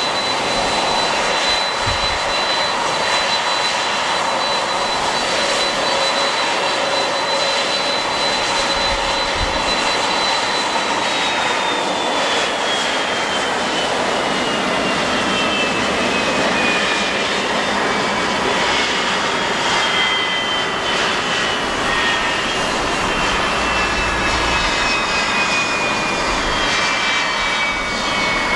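Jet airliner's engines running with a high whine under a steady rush of noise. The whine holds level, then from about a third of the way in slowly falls in pitch, as the engines wind down or the aircraft moves off.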